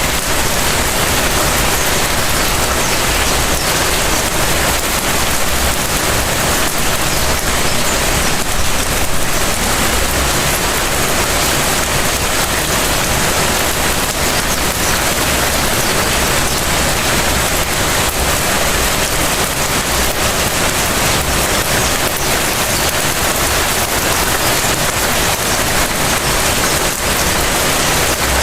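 Light rain falling steadily onto surfaces: a dense, even hiss with scattered drop ticks.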